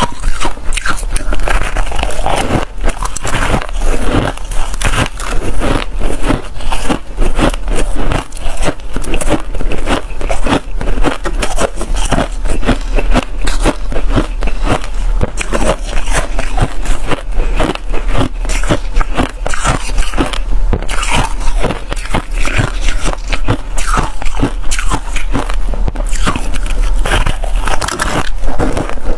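Close-miked crunching of packed freezer frost being bitten and chewed: a dense, continuous crackle of many small crunches.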